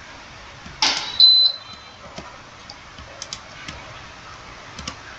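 Faint, scattered computer mouse and keyboard clicks, a few spaced over the seconds. About a second in, a short hiss with a brief high whistle-like tone is the loudest sound.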